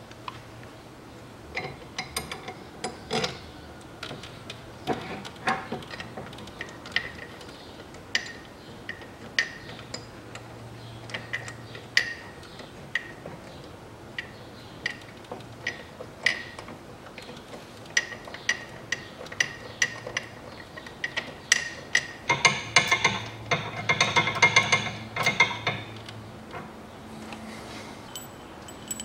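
Scattered sharp metallic clicks and clinks of hand tools and metal parts, then a ratchet wrench clicking rapidly for about three seconds near the end as the bolts of a new front engine mount are run in.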